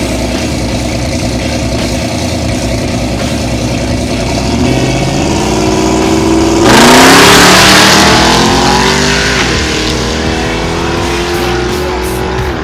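A drag-racing car's engine held at the line, then revved up and launched hard at full throttle about two-thirds of the way through. The loud surge of the launch fades as the car pulls away. Its pitch climbs, drops once at a gear change, and climbs again.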